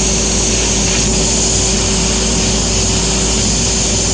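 CNC fiber laser cutting machine running while cutting thin stainless steel: a steady loud hiss over machine noise, with a constant hum-like tone underneath.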